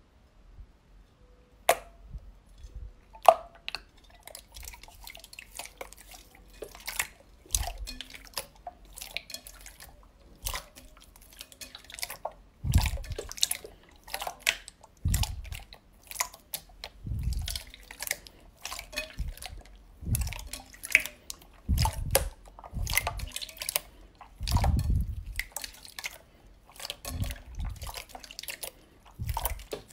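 Hands kneading and pressing a large bowl of clear slime: irregular wet clicks, pops and squelches, with deeper squelches every second or two in the second half.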